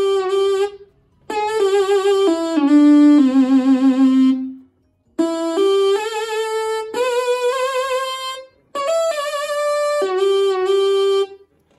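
A software instrument lead sound played one note at a time from an Arturia KeyLab Essential 61 MIDI keyboard: a melody of held notes with vibrato, in four short phrases with brief pauses between them. It stops just before the end.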